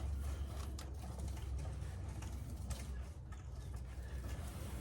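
Faint scattered clicks of a new automatic-transmission filter and its gasket being handled and fitted, over a steady low hum.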